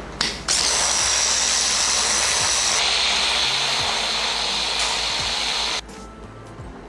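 AGARO hand blender motor running on its chopper attachment, grinding a wet coconut-and-chilli chutney mix. A click comes just before it starts about half a second in; the note shifts about halfway through, and the motor cuts off suddenly near the end.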